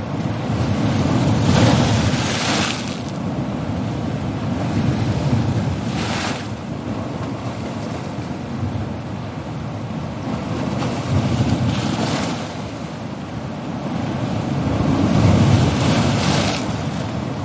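Sea waves breaking on a coast: a continuous surf rumble that swells and falls, with waves crashing and hissing several times, the loudest about two seconds in and again near the end.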